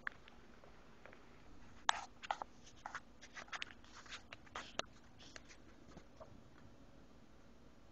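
Faint, irregular clicks and rustles, bunched from about two seconds in to five and a half seconds, over a faint steady hum: handling noise from the recording phone as it is moved and reframed.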